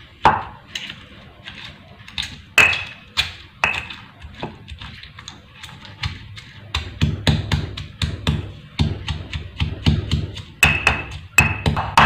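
Stone pestle pounding boiled chilies, shallots, garlic and tomato in a stone mortar, grinding them toward a smooth spice paste: a series of knocks and thuds, irregular at first, then a faster, steady beat of about three strikes a second from about seven seconds in.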